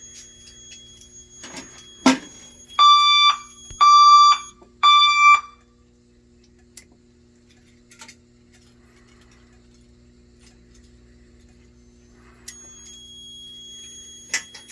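Fire alarm sounding three loud tones of about half a second each in the temporal-3 (Code 3) evacuation pattern, just after a click. A faint steady hum follows.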